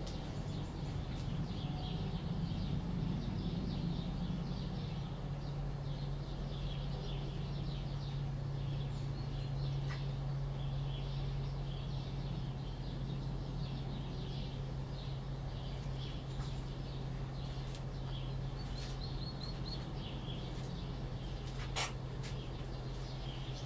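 Chicks peeping in many short, high calls, scattered throughout, over a steady low hum; a single sharp click near the end.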